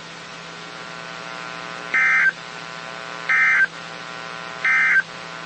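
NOAA Weather Radio SAME header: three short bursts of shrill digital data tones about a second apart, the coded header that opens a new emergency alert. A steady electrical hum runs underneath.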